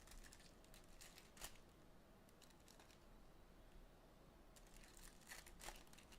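Faint crinkling and ticking of foil trading-card pack wrappers being torn open and handled, with sharper clicks about a second and a half in and again near the end.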